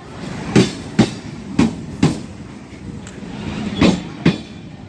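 Diesel locomotive's wheels clacking over rail joints: three pairs of sharp clacks, the two in each pair about half a second apart, over a steady running rumble.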